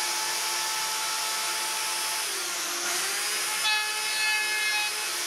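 Plunge router with a bearing-guided slot cutter running at speed and cutting a slot into the edge of a wooden board: a steady whine with cutting hiss. The motor's pitch dips briefly about halfway through as the bit takes load, then recovers.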